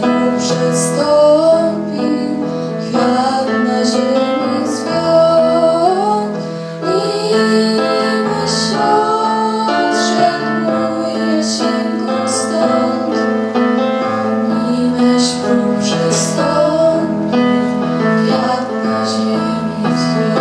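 A girl singing a slow Polish wartime song about a white rose into a microphone, over piano accompaniment.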